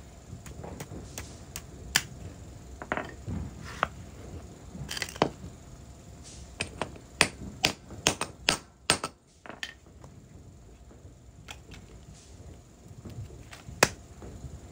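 Hand tools and metal parts of a drive shaft universal joint being handled and tapped: irregular sharp clicks and knocks, bunched quickly about seven to nine seconds in, with one loud knock near the end.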